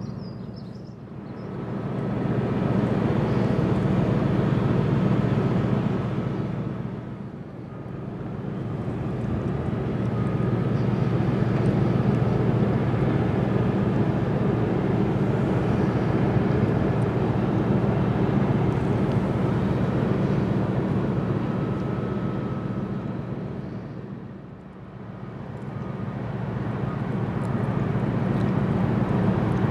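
Steady low rumble of ship and tug engines on the river, mixed with wind. It dips and swells back three times: about a second in, at about seven seconds, and near the end.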